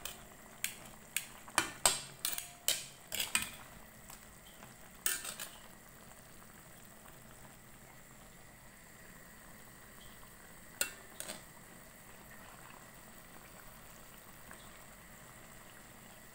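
A utensil clinks and knocks against the pan several times in the first few seconds, again around five seconds and once more near eleven seconds, as chicken adobo with potatoes and eggs is stirred. Between the knocks there is a faint steady simmer of the sauce.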